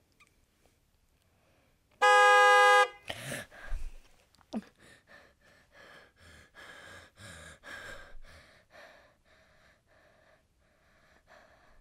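A car horn honks once, a single held blast just under a second long, about two seconds in. After it comes a run of soft, uneven short sounds.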